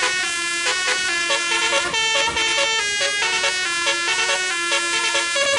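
Basuri telolet horn on a tour bus, a multi-tone air horn playing a quick melody of stepping notes, some short and some held, without a break.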